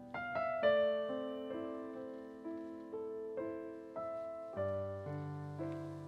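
Yamaha Clavinova digital piano playing a slow introduction to a song: soft chords struck about every half second to a second, each fading away. Deeper bass notes come in about halfway through.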